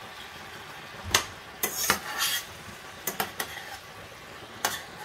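A metal spoon clinks and scrapes against a stainless steel frying pan while stirring sliced mushrooms and beef, with irregular sharp clinks over a steady low frying hiss.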